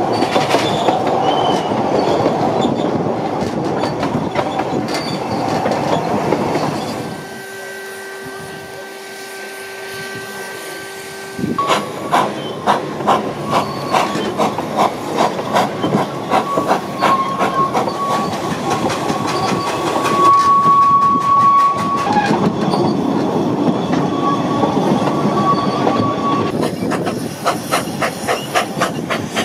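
Narrow-gauge steam train on the Ffestiniog Railway running, heard from on board: a fast, even clicking of the wheels, with a long, steady wheel squeal on a curve through the middle. Before that comes a quieter stretch of a few seconds with a steady, many-toned hum.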